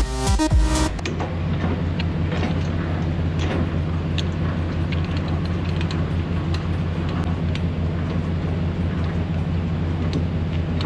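Semi truck's diesel engine idling steadily, with scattered faint clicks. A burst of electronic background music cuts off about a second in.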